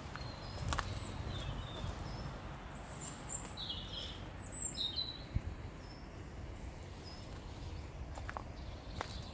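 Small birds chirping a few short calls, most in the middle, over a steady outdoor background rush, with an occasional footstep on the path.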